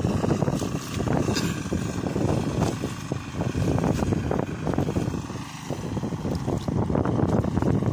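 Yamma 12 hp engine on a turtle tiller (hand tractor) running as it churns a flooded rice paddy. Under it is a rough, uneven rumble that rises and falls.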